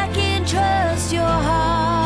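A woman singing a slow worship song over steady instrumental accompaniment. She sings a few short notes, then holds one long note with vibrato through the second half.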